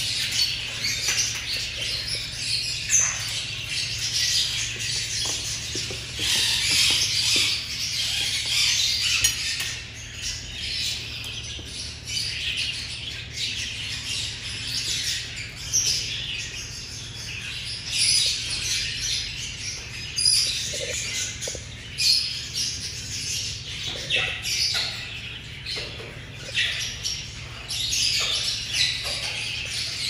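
A dense chorus of many small caged birds chirping and twittering together without pause, over a faint steady low hum.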